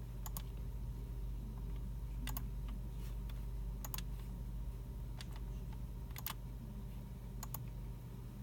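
Sparse keystrokes and mouse clicks from computers in a library computer room, several coming in quick pairs, over a steady low hum.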